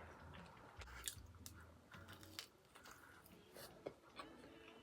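Faint chewing of food, with scattered small wet mouth clicks.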